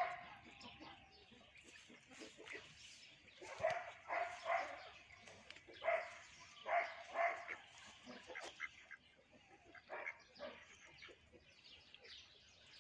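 A dog barking in short bursts of two or three barks, with pauses between.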